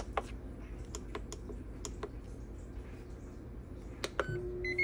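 Buttons on a Ninja multicooker's control panel clicking as they are pressed, a dozen or so times in a row. About four seconds in, the air-fryer fan starts with a steady hum, and a short high beep sounds near the end as cooking begins.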